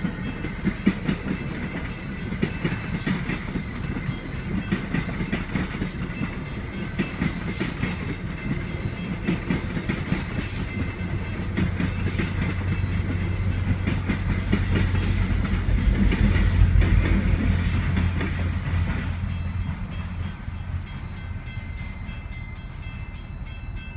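Passenger train passing a grade crossing, its wheels clattering steadily over the rail joints. Near the end of the consist the trailing MP36 diesel locomotive goes by with a deep engine rumble that swells and then fades as the train clears the crossing.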